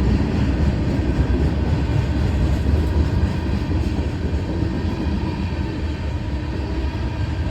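CSX freight train rolling past, a steady rumble of its cars on the rails.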